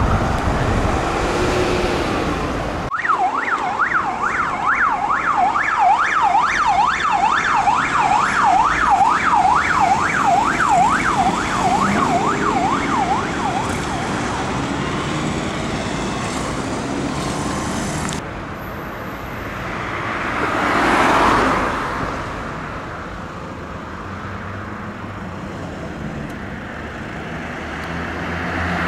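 Siren of a fire service Toyota Hilux response vehicle on yelp, fast rising and falling sweeps repeating several times a second, starting about three seconds in and stopping after about eleven seconds. Road traffic noise follows, with a vehicle passing about twenty seconds in.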